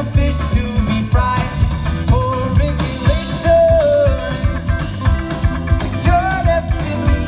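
Live rock band playing: electric guitars, bass guitar and drum kit, with a lead vocal singing over them.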